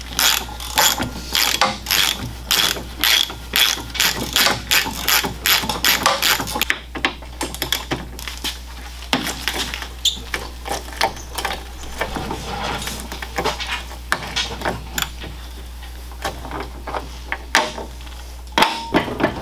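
Hand ratchet wrench clicking as it is worked back and forth, about three clicks a second for the first several seconds, then slower, irregular clicks, undoing fasteners on a car's front suspension.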